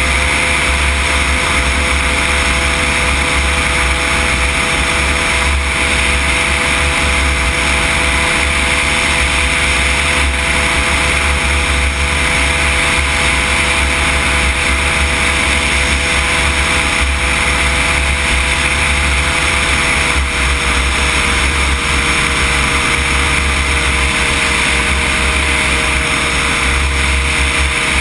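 Weight-shift microlight trike's engine and propeller running steadily in cruising flight, under a steady rush of air. The engine note drops slightly about two-thirds of the way through.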